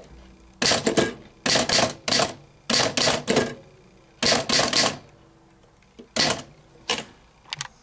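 Keys of a 1933 Underwood Champion Standard manual typewriter being typed, the typebars striking the platen with sharp clacks in quick runs of several keystrokes, separated by short pauses.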